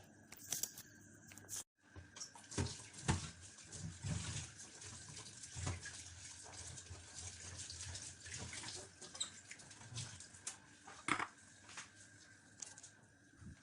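Tap water running in a sink while oregano leaves are washed by hand under it, with scattered knocks and clinks.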